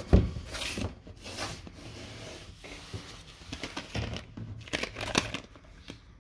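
Plastic packaging being handled: shrink wrap and a clear plastic clamshell crinkling, crackling and clicking in the hands in irregular bursts. It opens with a low thump.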